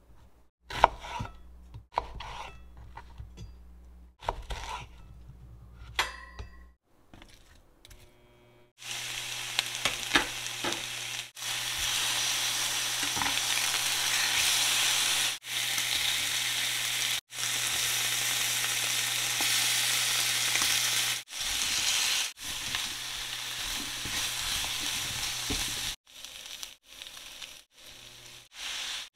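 Pork belly slices sizzling steadily in a hot nonstick frying pan as they are turned with tongs. The sizzle starts about a third of the way in, after a few sharp knocks and clatters, and is the loudest sound. Near the end it drops to a lighter sizzle with scattered taps as chunks of onion are stirred in.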